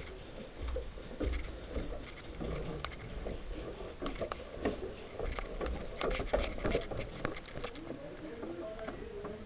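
Footsteps and scuffing of a player moving through the building, with scattered sharp clicks and knocks and faint voices.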